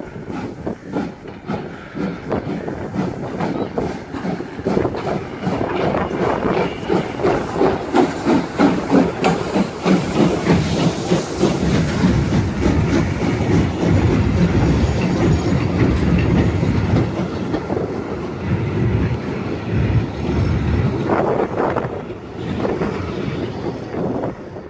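Pt47 2-8-2 steam locomotive and its train of carriages passing close by. The sound pulses rhythmically as the locomotive goes past, then gives way to the steady rumble and clickety-clack of the coaches' wheels, and fades near the end as the train moves away.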